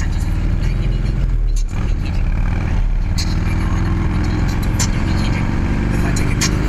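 Harley-Davidson Road Glide's V-twin engine running under the rider as the bike pulls through a turn and accelerates, with a brief break about one and a half seconds in and the pitch climbing afterwards.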